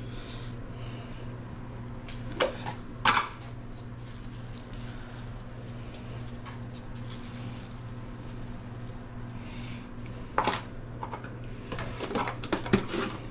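Kitchen handling while raw shrimp are salted by hand: a few brief taps and knocks from the plastic salt container and hands on the counter, the last ones clustered near the end, over a steady low electrical hum.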